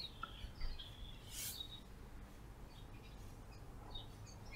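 Faint birdsong, a few short chirps in the first second and a half, over the low steady hum of a slowly moving side-by-side utility vehicle.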